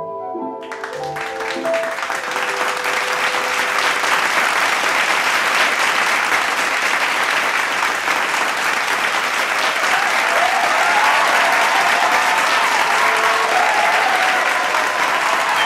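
An audience applauding, swelling in over a soft music passage that fades out in the first second or two, then a steady, loud ovation of clapping.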